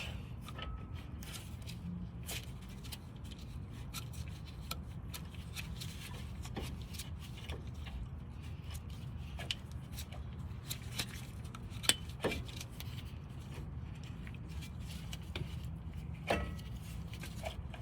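Scattered light metallic clicks and taps of rear brake parts being handled while the caliper is fitted back over new pads, with one sharper click about twelve seconds in. A steady low hum runs underneath.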